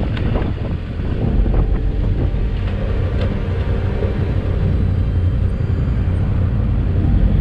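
Yamaha Ténéré 700 motorcycle running while riding, a steady low engine rumble mixed with wind buffeting the microphone.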